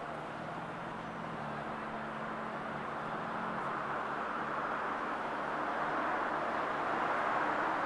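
Steady outdoor background noise, an even rushing sound with a low hum that fades out about halfway through; the rushing swells slightly toward the end.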